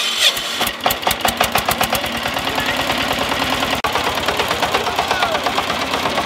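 Small farm tractor's single-cylinder diesel engine chugging with a rapid, even knocking beat that quickens after about two seconds as it pulls away towing a loaded trailer.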